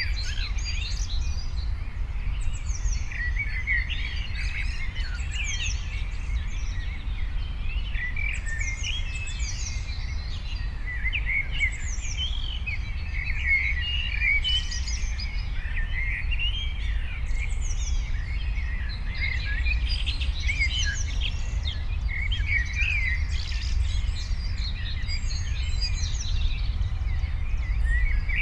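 Several songbirds chirping and singing continuously, overlapping short chirps with repeated high, quick downward-sweeping notes, over a steady low rumble.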